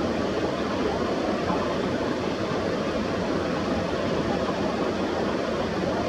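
Steady, even rushing background noise with no separate events, strongest in the low-middle range.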